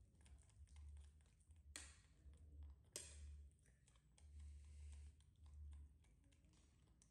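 Near silence in a small room, with faint scattered clicks and ticks and two sharper clicks about a second apart near the middle.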